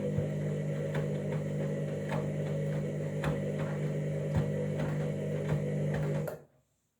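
Candy washing machine running early in its cycle: a steady hum with a knock about once a second, cutting off abruptly about six seconds in.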